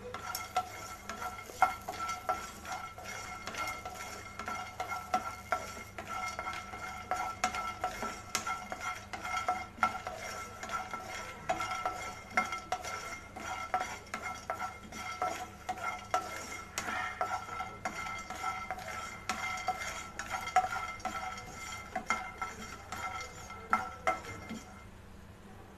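Wooden spatula stirring and scraping apricot kernels around a nonstick frying pan as they dry-roast, the kernels clicking and rattling against the pan in quick irregular strokes. A faint steady whine runs underneath and cuts out shortly before the end.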